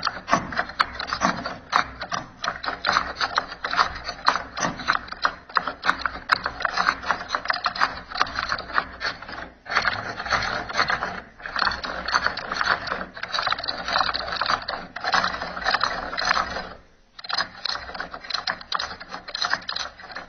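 Computer keyboard keys clattering in a rapid, dense stream of clicks, with short breaks about ten seconds in and again near seventeen seconds.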